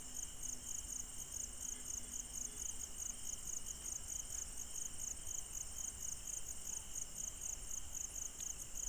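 Crickets chirping steadily at night, an even pulsing chirp a few times a second, over a faint steady high whine.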